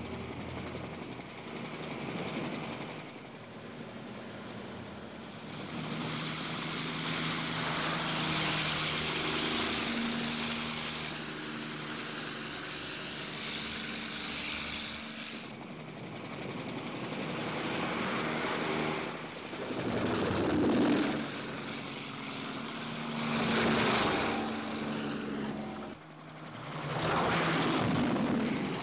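Small bubble-canopy helicopter flying low, its engine and rotor running steadily. The sound swells loud three times in the last third as it makes close passes.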